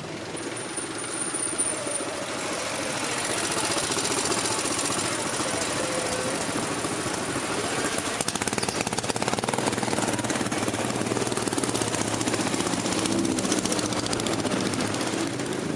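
Street traffic heard from a moving vehicle: a running engine with a rapid rattle under steady road noise, growing louder a few seconds in.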